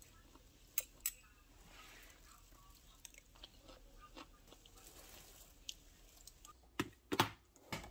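Metal chopsticks and a spoon clink against a ceramic bowl while tofu and broccoli are mixed and eaten: two sharp clinks about a second in and three louder ones near the end. In between comes faint chewing of a mouthful.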